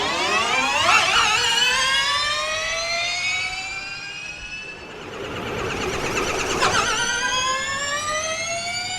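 Formula E season 3 electric race car accelerating: a high motor and gearbox whine rising steadily in pitch. It fades around four to five seconds in, then a second rising whine builds.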